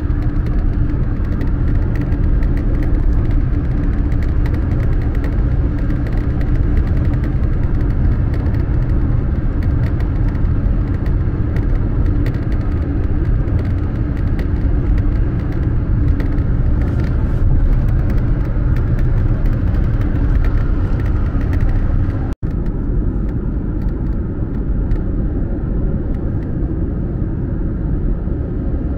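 Steady rumble of road noise inside a car cruising on a motorway, with a low hum running through it. The sound cuts out for an instant a little over twenty seconds in.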